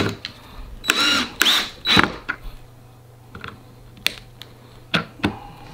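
Irregular clicks and knocks of metal couch-leg hardware being fitted and screwed onto the frame during furniture assembly, a few louder knocks among many light taps.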